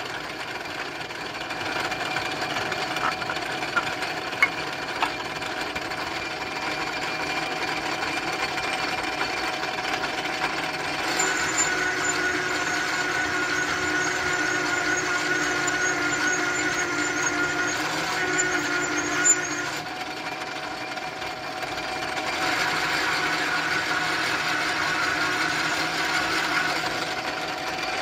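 Metal lathe running while a cutting tool turns a metal carburetor adaptor: a steady machine hum with a ringing cutting tone that grows stronger about eleven seconds in, eases around twenty seconds, then comes back. A few light clicks early and one sharp click just before the tone eases.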